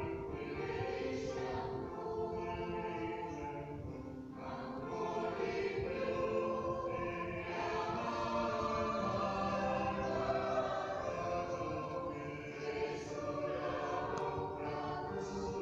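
Choir singing, many voices together in long sustained phrases, in a large cave. The singing eases briefly about four seconds in and again shortly before the end.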